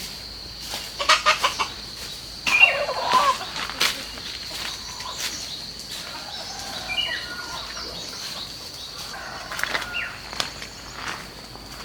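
Chickens clucking and squawking in short, falling calls, the loudest a bit over two seconds in, with a few sharp clicks just before it. A steady, high insect drone runs underneath.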